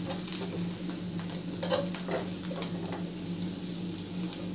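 Fermented bamboo shoot (hendua), green chillies and mustard seeds sizzling in hot oil in a non-stick pan as they are roasted. A wooden spoon stirs and scrapes them, with one sharper tap about a second and a half in.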